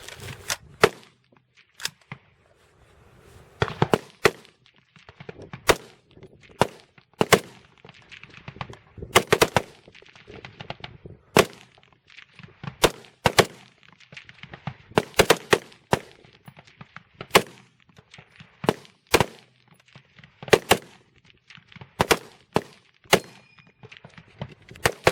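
Several rifles firing rapid fire at once along a highpower firing line: sharp single shots at irregular spacing, roughly one to two a second, some loud and close, others softer from further down the line.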